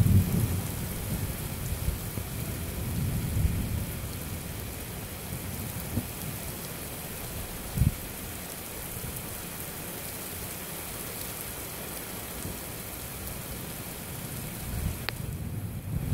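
Steady heavy rain hissing, with strong wind gusts rumbling low at the start, a few seconds in and again near the end. A brief low thump just before the middle.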